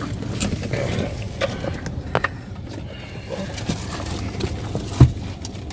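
Rustling and light knocks of things being handled, with one loud low thump about five seconds in.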